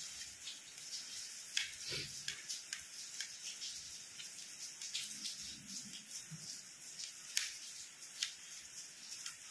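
Small kitchen knife dicing tomato on a steel plate: irregular light clicks of the blade against the metal, a few sharper ones, over a steady hiss.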